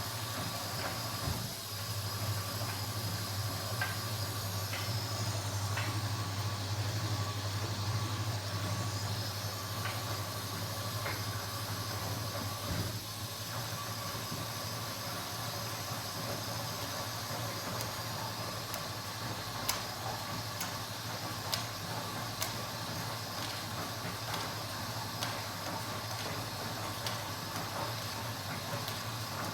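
Kenwood washing machine running: a steady low motor hum under a faint hiss, with scattered light clicks and ticks.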